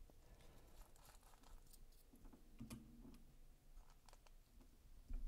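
Near silence with a scatter of faint small metal clicks from a precision screwdriver and small parts as a folding knife is taken apart.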